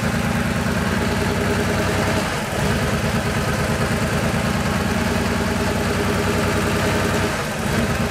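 1986 Porsche 911 3.2 Carrera's air-cooled flat-six idling unevenly: the running dips and picks back up twice, about two seconds in and near the end. It is a surging idle, traced to the idle bypass valve, which the owner thinks has a bad connection.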